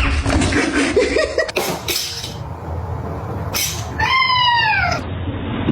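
A cat meows once about four seconds in, a single call that falls in pitch, over a steady background of noise.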